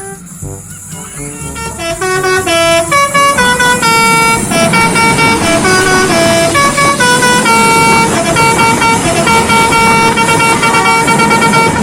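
Telolet musical air horn playing a quick tune of short notes, several tones sounding together. It swells over the first two seconds and then carries on loud over a steady rushing noise.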